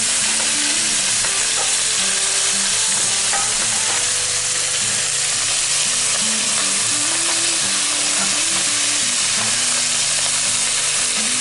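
Chopped thick-sliced bacon sizzling steadily in a hot Lodge Blacklock 12-inch cast iron skillet while a spatula stirs the pieces around.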